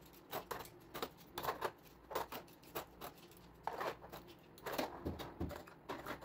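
Metal cutlery clinking and rattling as it is dropped in handfuls into a plastic cutlery tray in a kitchen drawer, in a string of short, irregular clatters.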